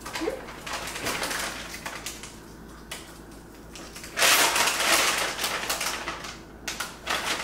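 Crinkly packaging bag of treats rustling and crackling as it is pulled from a drawer and handled, loudest in a dense burst about four seconds in, with a few short knocks near the end.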